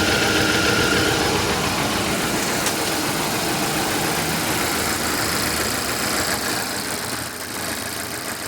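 Volvo XC90 plug-in hybrid's four-cylinder petrol engine idling steadily while misfiring; the owner suspects a failed head gasket.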